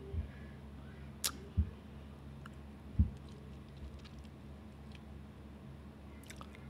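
A few scattered sharp clicks and two dull low thumps over a faint steady hum. The loudest thump comes about three seconds in.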